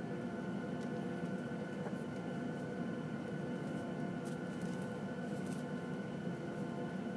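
Boeing 737-700's CFM56-7 turbofan engines idling, heard inside the cabin as a steady low rumble with a steady whine over it. A few faint ticks about four and five seconds in.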